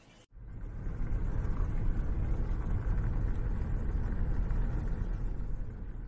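Ford Transit van driving, heard from inside the cab: a steady low rumble of engine and road noise that starts just after a short silence and drops off a little near the end.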